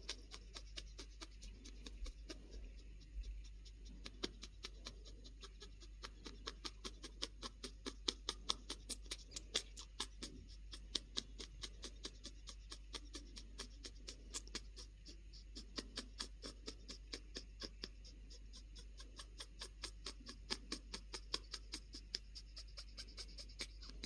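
White-capped pionus parrot making its happy wheeze: a quick run of short, raspy, breathy puffs, several a second, the sign of a contented bird enjoying a head scratch.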